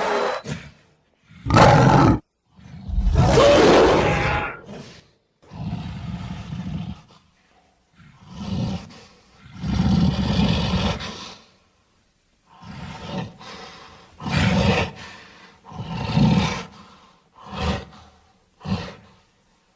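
Monster sound effects for a giant ape: a string of separate roars and growls with short silences between them. A loud roar ends about half a second in, a short one follows, then a long roar, then about seven quieter, shorter growls and huffs.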